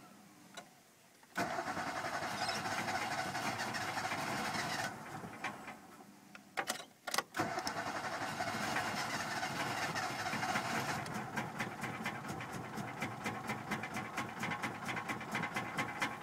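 Ford Festiva's four-cylinder petrol engine being started: it catches about a second and a half in and runs, then sags and stutters as if about to die around six to seven seconds in. It picks up again and runs on with a fast, even pulsing. This is a car that won't start and stay running.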